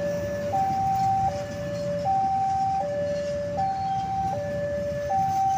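Passenger train coaches rolling past with a steady low rumble, while a two-tone electronic warning alarm alternates high and low, each tone held for about three-quarters of a second.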